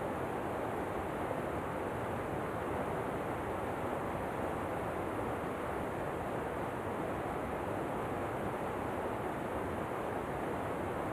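Steady, even rushing of falling water, a continuous waterfall noise without change or distinct splashes.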